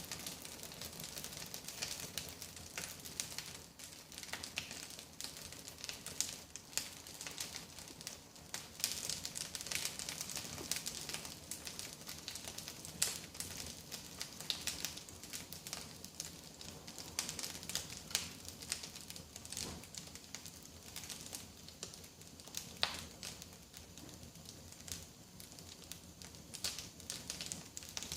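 Freshly lit firewood, stacked fireplace-style and lit from the top, crackling and popping in the firebox of a masonry fireplace-barbecue. Irregular small snaps over a soft hiss, with a couple of sharper pops in the second half.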